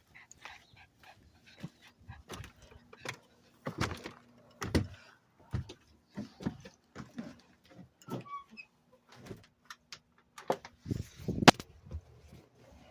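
A dog's sounds among irregular knocks and scuffs, with a sharp knock near the end as the loudest.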